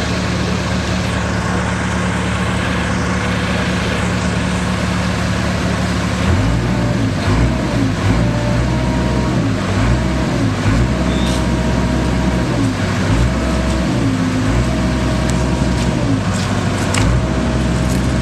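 Diesel engine of a tracked hydraulic excavator running steadily; about six seconds in its note changes and then dips and recovers over and over, as the engine takes hydraulic load while the controls are worked.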